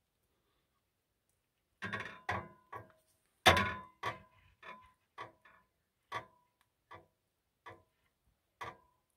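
A run of sharp, irregular ticks, some with a short ring, starting about two seconds in; the loudest comes about a second later, and they then grow fainter and further apart.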